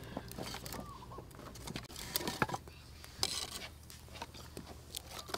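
Kindling fire in a clay stove catching: scattered crackles and light clicks and knocks of thin sticks being laid in, with a short rustling hiss a little after three seconds.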